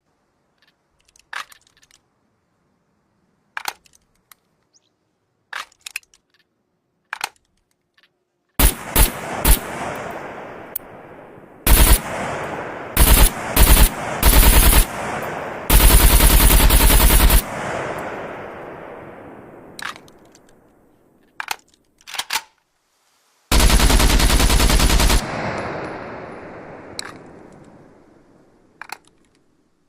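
AKM assault rifle (7.62×39mm) firing. After a few sharp clicks come several quick single shots and short bursts, then two long full-auto bursts, each trailing off in a long echo.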